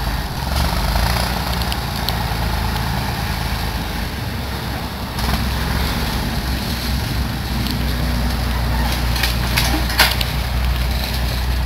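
Backhoe loader's engine running steadily as the machine works a fallen tree trunk, with a few knocks and one sharp crack near the end.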